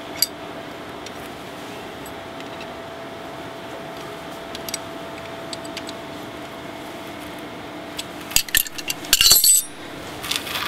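Metal wrenches clicking and clinking against each other and the oil drain plug as it is tightened, with a sharper run of clinks about eight seconds in, over a faint steady hum.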